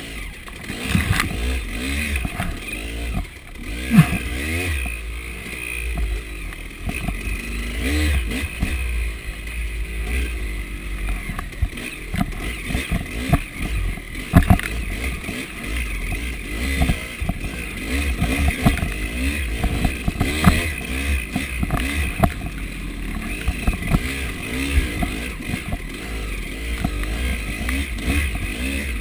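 KTM 300 two-stroke dirt bike engine being ridden hard, its revs rising and falling over and over as the throttle is worked, with sharp knocks from the bike hitting the rough ground a few times.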